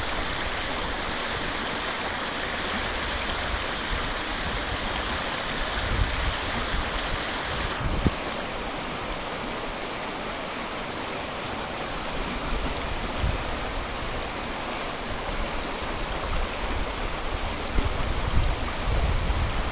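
Shallow river rapids rushing over rocks: a steady hiss of running water, whose brighter top falls away suddenly about eight seconds in. Wind buffets the unshielded microphone in low gusts, most of all near the end.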